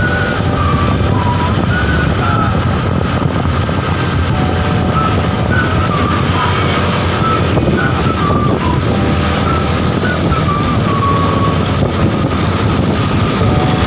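Steady engine and road noise from a moving vehicle on the road.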